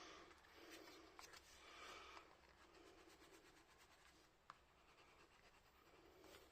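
Faint scratching and rubbing of a dry art material drawn across paper, with a few small ticks: colour being swatched dry in little blocks.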